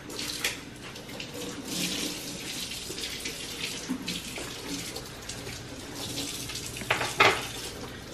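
Water running from a kitchen tap into the sink as a steady hiss, with sharp knocks about half a second in and again, loudest, about seven seconds in.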